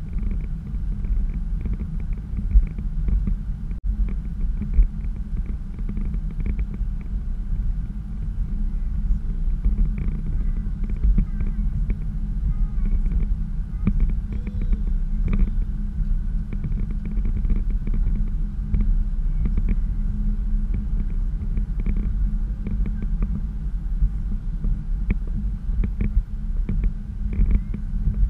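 Car driving at road speed, heard from inside the cabin: a steady low rumble of tyre, road and engine noise.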